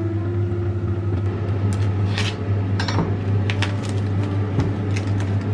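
Kitchen food-prep handling: scattered clicks and short crinkling rustles of plastic wrap on a head of greens, over a steady low hum.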